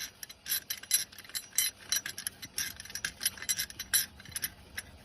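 Metal hand tools clicking and clinking against metal parts in a run of short, irregular clicks, as bolts and fittings are worked loose during a starter removal.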